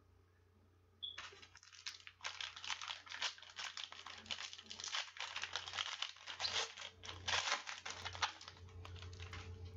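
A trading-card pack wrapper is torn open and crinkled by hand. A dense run of crackling starts about a second in and dies down near the end.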